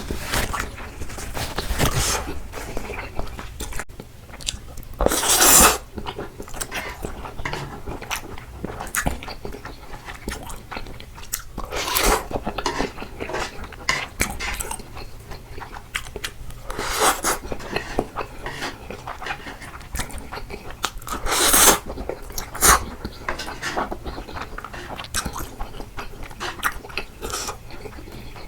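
Person eating close to the microphone: continual chewing and mouth clicks, with four louder bursts of about half a second to a second spaced a few seconds apart.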